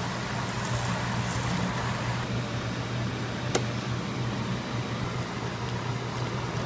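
Steady fan-like hum with a single sharp click about three and a half seconds in. Near the end, water starts pouring from an electric kettle into a pot of vegetables.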